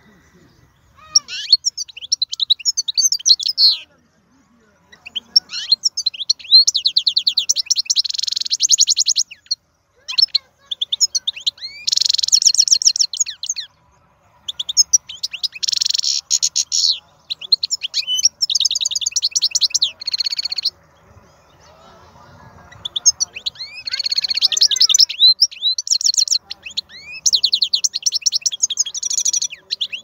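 Wild-caught European goldfinch singing: fast, high twittering and trilling phrases of a few seconds each, broken by short pauses.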